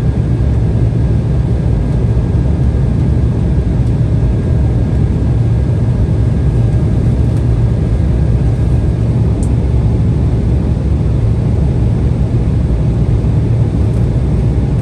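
Steady cabin noise inside an Embraer 175 airliner: its two GE CF34 turbofans and the airflow past the fuselage make an even, low-heavy rumble. A faint thin high tone in the background stops about nine seconds in.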